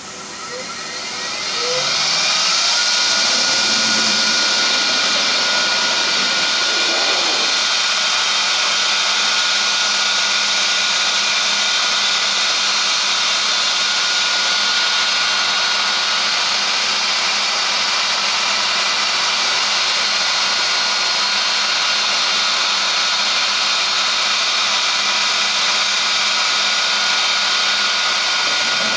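CNC router spindle spinning up over the first two seconds, its whine rising in pitch, then running at speed with a steady high whine over a loud hiss as it trims the edge of a vacuum-formed plastic part.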